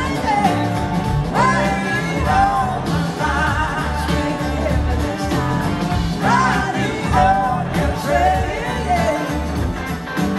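Live blues-rock band playing: drums, electric bass, keyboard and electric guitars, with a lead line that glides up and down in pitch over the groove.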